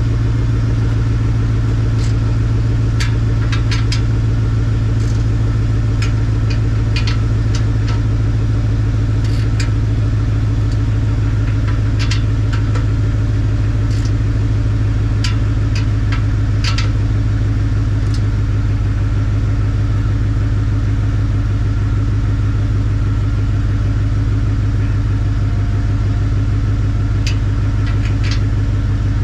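Car engine idling steadily through an exhaust pipe patched with a clamp-on pipe connector, which still leaks a little exhaust at both ends of the joint. Short sharp clicks come through every few seconds, mostly in the first half and again near the end.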